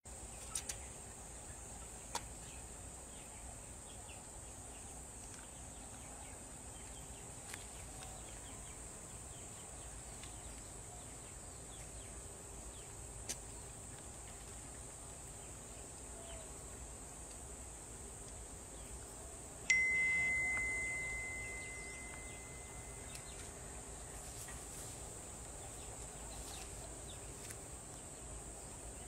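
Faint steady high-pitched insect drone, with a few soft clicks. About twenty seconds in there is a single sharp ringing ping that fades over about three seconds.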